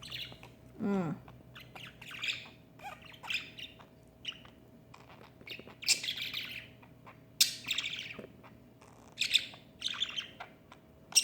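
Pet parrot and parakeet squawking and chirping: short harsh calls scattered every second or two, with one falling call about a second in.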